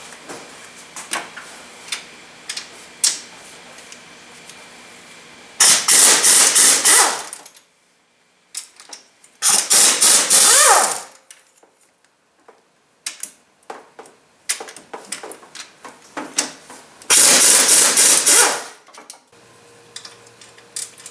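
Pneumatic impact wrench on a long extension hammering loose cylinder head bolts, in three bursts of a second or two each, with light tool clicks between.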